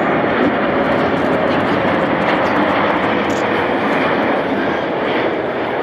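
Jet noise from a Boeing 747-8F freighter's four GEnx-2B turbofans as the aircraft lands: a loud, steady rush with a faint tone in it, easing off slightly near the end.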